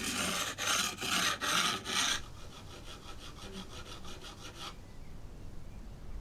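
A hand tool scraping back and forth on wood. About five strong strokes come in the first two seconds, then quicker, lighter strokes follow and stop a little before the end.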